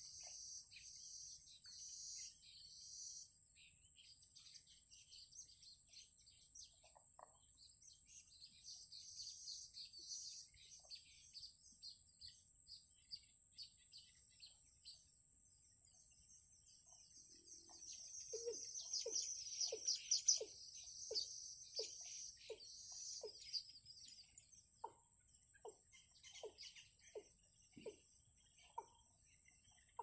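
Birds chirping and twittering in bouts over a steady high whine. A little past halfway, a run of short, lower falling calls starts, repeating about every two-thirds of a second.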